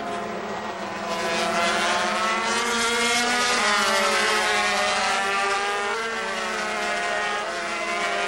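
Two-stroke 250cc Grand Prix racing motorcycles running hard past trackside, their engine notes rising and falling together as they go through a corner, getting louder about a second in.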